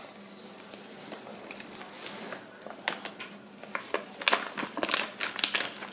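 A bag of fish fry breading mix crinkling and crackling as it is squeezed and shaken to empty the powder into a plastic bowl. The crackles are sparse at first and grow busier and louder about two-thirds of the way in.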